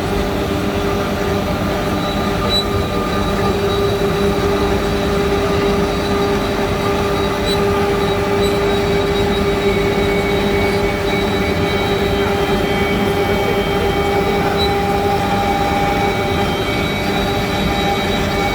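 DeKart S6060 desktop CNC milling machine cutting D16T aluminium: the spindle and end mill give a steady whine over a continuous grinding noise of the cut.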